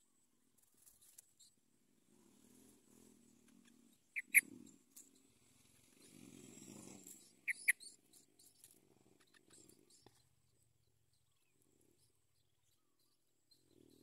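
Yellow-vented bulbuls calling at the nest: two pairs of short, sharp chirps about three seconds apart, over a faint low rumble.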